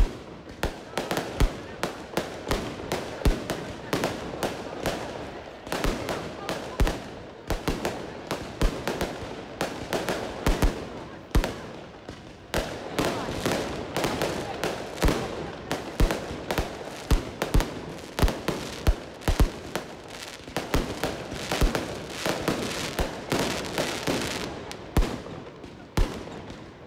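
Aerial fireworks launching and bursting overhead: an irregular, rapid run of sharp bangs, roughly two a second, without a break.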